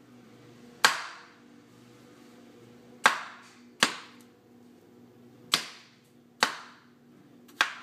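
Meat cleaver chopping through cantaloupe flesh into a wooden cutting board: six sharp chops at uneven intervals, each dying away quickly.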